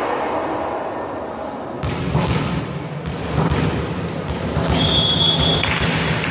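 A volleyball being struck and knocked about during a rally, several sharp thuds ringing out in a large echoing hall, followed about five seconds in by the referee's whistle, one short steady blast lasting about a second that ends the rally.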